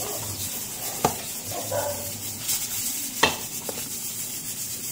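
Hot annatto-and-butter oil sizzling in a wok as leftover rice is spooned in, with a few sharp clicks of the metal spoon on the pan, the loudest about three seconds in.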